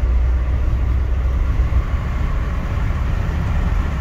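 Steady road and wind noise with a low rumble inside a camper van's cab, driving at motorway speed.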